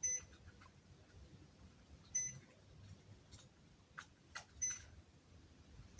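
Electric heater beeping in answer to remote-control button presses: four short, high beeps, with a couple of faint clicks between them.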